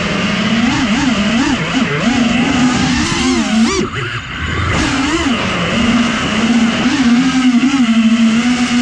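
Four brushless motors and 4.9-inch propellers of a 4S five-inch FPV quadcopter whining in flight, the pitch swinging up and down quickly with the throttle. About four seconds in it dips and sweeps back up, then holds a steadier tone near the end.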